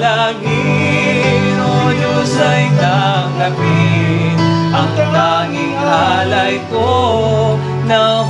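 Tagalog worship song playing: a voice singing a slow melody over guitar and a bass line.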